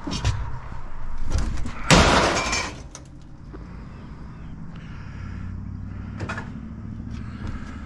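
A few sharp knocks, then a loud clattering crash about two seconds in, followed by a vehicle engine running steadily.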